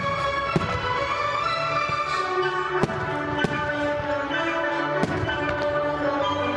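Music with sustained pitched tones, fired together with fireworks: several sharp firework bangs go off through it, roughly a second or two apart.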